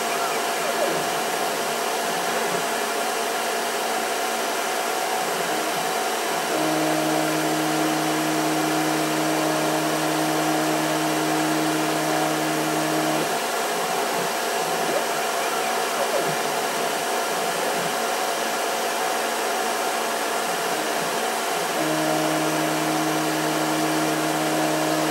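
Denford Orac CNC lathe running a program with no cut being taken: the spindle motor runs with a steady whir throughout. A steady low hum joins it twice, from about six seconds in to about thirteen seconds, and again from about twenty-two seconds in, as the carriage feeds along the axes.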